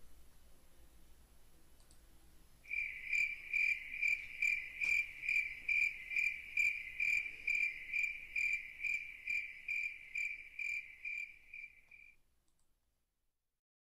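A cricket chirping in a steady, even rhythm, a little over two chirps a second, starting a few seconds in and growing fainter before it stops near the end.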